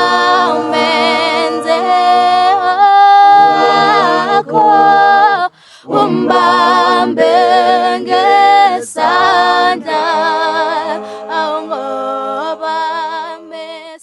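A cappella group singing: several voices in harmony with vibrato and no instruments, briefly breaking off about five and a half seconds in.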